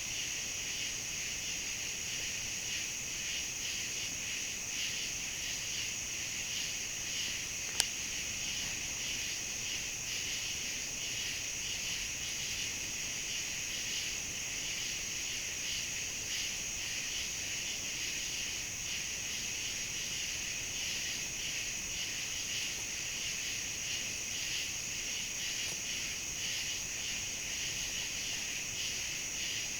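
Steady chorus of crickets and other insects: a continuous high trill over a second, pulsing layer lower down. A single sharp click about eight seconds in.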